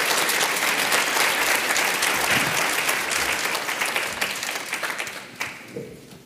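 Audience applause: many people clapping together, dying away a little before the end.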